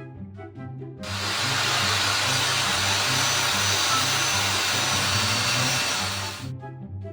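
Background music with a steady repeating bass line. From about a second in, a loud, even rushing noise covers it for about five seconds, then cuts off.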